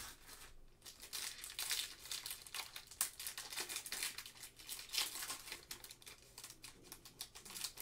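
Foil wrapper of a Panini Select trading-card pack being torn open and pulled off by gloved hands: a run of irregular crinkles and crackles.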